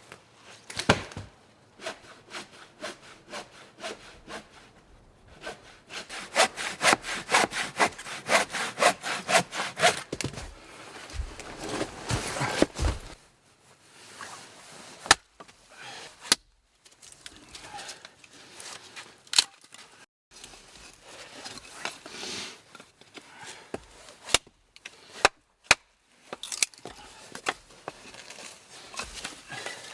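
Hand saw cutting through wood in quick back-and-forth strokes, about three a second, for several seconds early on, followed by scattered sharp knocks and rubbing of wood being handled.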